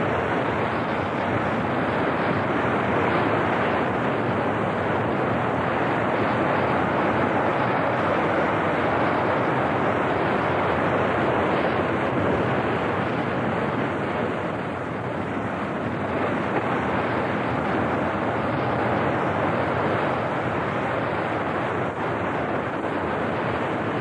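Sea surf washing on an old film soundtrack: a steady rushing noise with no treble, easing slightly about fifteen seconds in.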